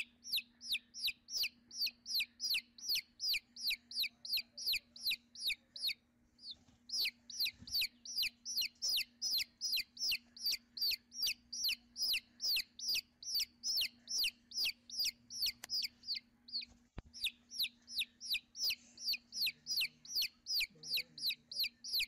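Nestling birds begging: a fast, even run of short, high cheeps, each sliding downward in pitch, about three a second, with two short breaks.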